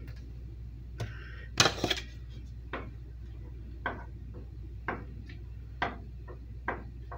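Light metal clinks and taps on a stainless steel stockpot, roughly one a second, with a louder clatter about one and a half seconds in, over a low steady hum.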